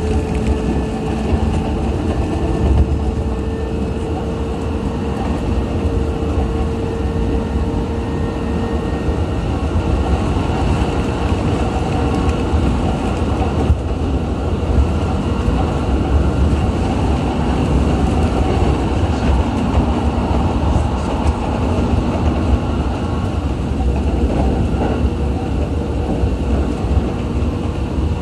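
JR East E129 series electric train running at speed, heard from inside the passenger car: a steady, even rumble of wheels on rails and running gear, with a faint steady whine over it for the first several seconds.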